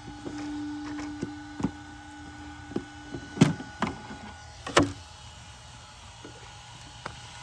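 A steady electric whine from the powered-up Traxxas Rally Slash, its ESC cooling fan running, stops about three seconds in as the car is switched off. Several sharp clicks and knocks of the car being handled follow, the loudest two about a second apart.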